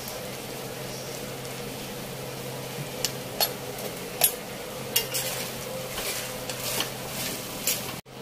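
Vegetables in soya sauce sizzling in a steel wok over a steady low hum. From about three seconds in, a spatula stirs them, clanking and scraping sharply against the wok several times.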